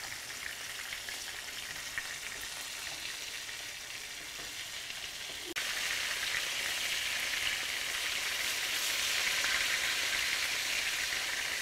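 Flour-dredged chicken tenders sizzling steadily as they shallow-fry in olive oil and butter in a skillet. The sizzle jumps suddenly louder about halfway through.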